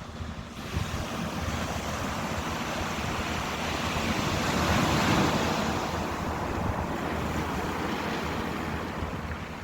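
Ocean surf: a wave washing in, swelling to its loudest about halfway through and then easing off, with the next one building near the end.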